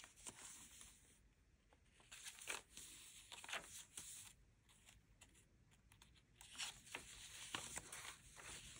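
Faint rustling of paper as the pages of a handmade junk journal of old paper are turned by hand: several short, soft brushes at irregular intervals.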